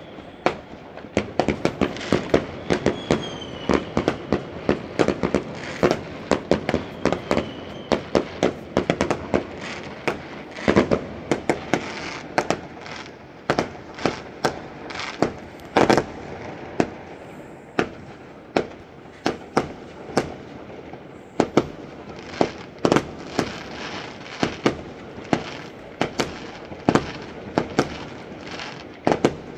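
A fireworks display: dense, irregular sharp bangs, several a second, easing slightly around the middle and picking up again toward the end, with a couple of brief whistles in the first few seconds.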